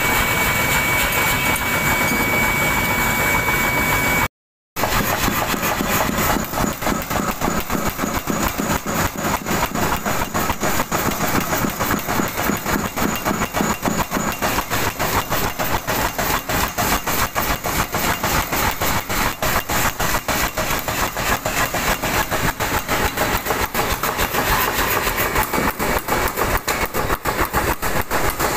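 Mechanical power hammer forging a high-carbon steel blade: rapid, even blows that repeat steadily after a brief break about four seconds in.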